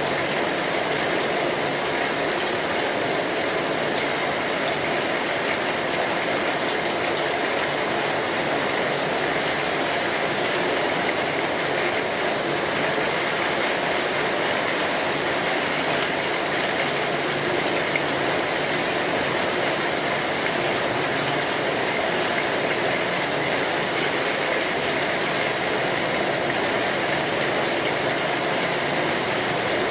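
Steady rain falling, an even hiss with a few faint drips ticking through it.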